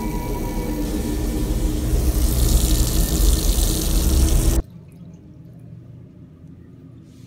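Water running from a washbasin tap into the sink, growing louder, then cut off abruptly a little over halfway through as the tap is shut.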